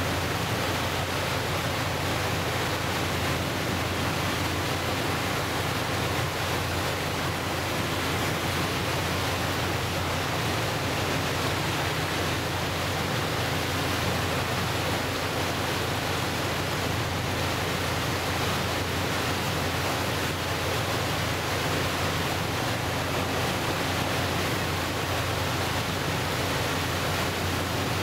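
Archipelago boat M/S Ramsö underway: a steady rush of water churning along the hull and wake, mixed with wind noise, over a low, even engine hum.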